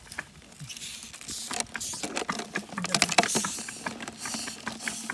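Dry plant debris being rustled and crackled by hand, with dense irregular sharp clicks that grow busiest and loudest about three seconds in.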